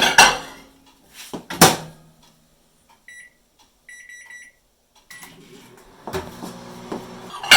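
Microwave oven door knocking shut, then two beeps from it, a short one and a longer one, as it is set and started. It then runs with a steady low hum, and a loud knock comes near the end.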